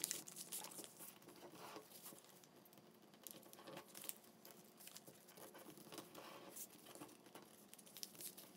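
Faint, intermittent rustling and crinkling of a sheet of brown paper as hands fold and press it flat into creases.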